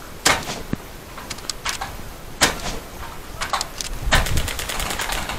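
Airsoft gunfire: two sharp single shots about two seconds apart with lighter clicks between, then, about four seconds in, a rapid burst of automatic fire at about ten shots a second.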